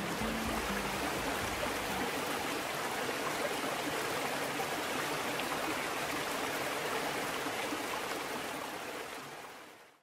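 A steady, even rushing noise, with the last low notes of background music dying away in the first two seconds; the rushing fades out near the end.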